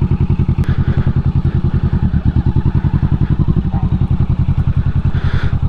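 Motorcycle engine running steadily at low revs, a regular low pulsing exhaust beat with no revving.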